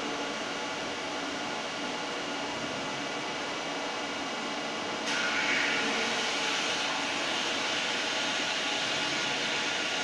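Makino EU64 wire EDM machine running with a steady mechanical noise. About five seconds in, a louder hiss starts suddenly and then holds steady.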